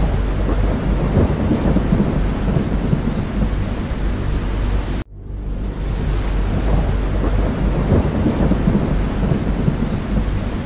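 Steady rain with a deep low rumble underneath, a looped ambient recording; about five seconds in it cuts out abruptly and swells back up.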